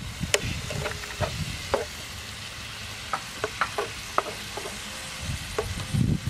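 Wooden spatula clicking and scraping against a frying pan as leafy greens are stir-fried, in irregular sharp knocks, over a low, steady frying sizzle.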